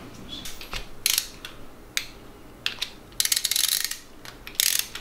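Hand ratchet clicking in short bursts, with sharp metal clinks between, as threaded pivot pins are run into an aluminium cylinder head.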